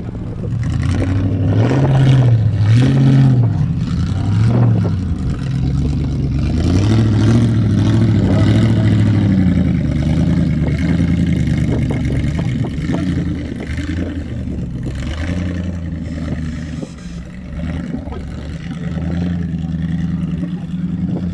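Off-road vehicle's engine revving in short surges, then held at higher revs for a few seconds before easing off, with knocks and clatter throughout.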